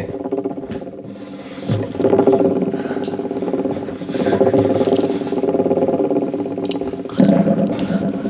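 Fidget spinner whirring, a steady buzz made of fast pulses, flicked back up to speed about two, four and seven seconds in.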